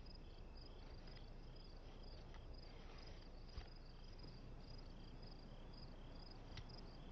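Faint crickets chirping in short repeated pulses, two or three a second, as night ambience; one light click about three and a half seconds in.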